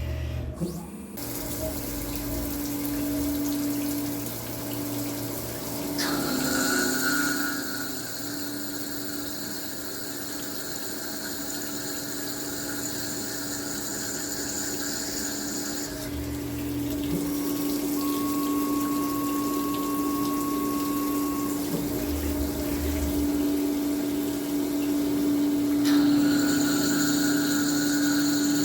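Tormach 1100MX CNC mill running with flood coolant spraying and splashing, over a steady machine hum. Higher whining tones come in and drop out every ten seconds or so as the machine changes what it is doing.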